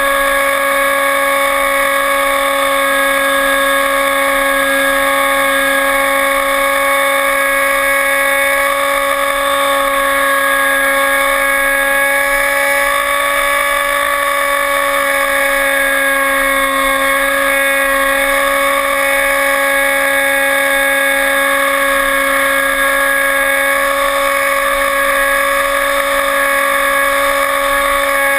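Electric motor and propeller of an RC airplane running steadily in flight, a constant whine whose pitch barely changes.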